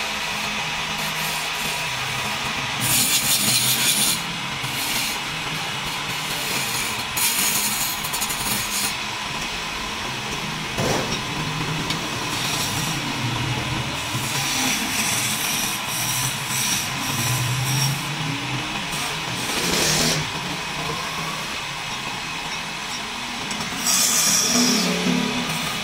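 Wood lathe running with a steady hum while a hand-held turning chisel cuts a spinning wooden chair leg, with louder bursts of cutting about three seconds in, around seven to nine seconds, and near the end.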